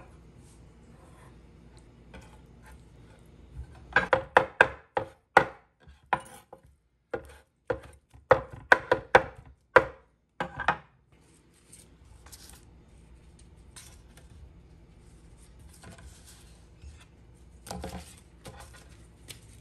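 Steel cleaver chopping cooked beef short rib on a wooden cutting board: a run of sharp knocks, a few a second, starting about four seconds in and stopping about seven seconds later. A softer brushing sound comes near the end.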